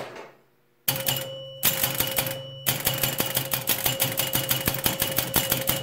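Electro-mechanical pinball machine in play, starting about a second in: rapid, continuous clacking of relays and score reels, with the machine's bell ringing over it and a low hum beneath.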